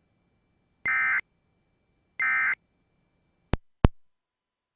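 Emergency Alert System end-of-message data bursts: two short, identical bursts of harsh digital tones about a second apart, marking the end of the alert. Two sharp clicks follow close together.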